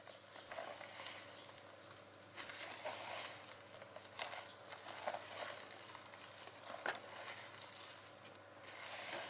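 Silicone spatula folding stiffly beaten egg whites into cake batter by hand: faint, soft wet squelches and scrapes against the bowl every second or so, with one sharper tap about seven seconds in.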